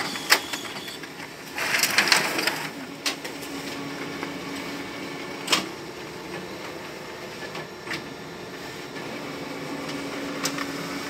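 Ricoh Aficio MP 5002 photocopier running a two-sided copy job enlarged from A4 to A3: a steady mechanical hum, a brief noisy rush about two seconds in, and scattered clicks.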